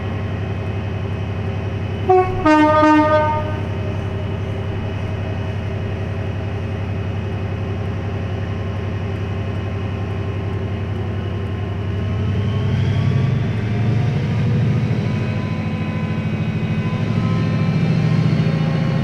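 A Class 68 diesel locomotive's engine running steadily, with a short two-tone horn blast about two seconds in: a brief higher note, then a lower one. From about halfway through, the engine note rises and grows louder as the locomotive powers up to pull away.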